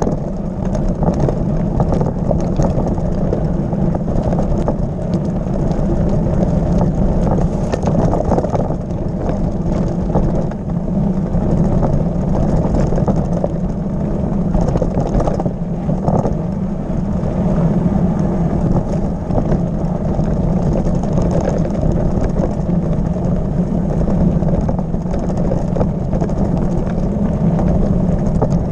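Mountain bike rolling fast over a loose gravel and stone track: continuous rumble and rattle of the tyres and frame over the stones, with a steady low drone.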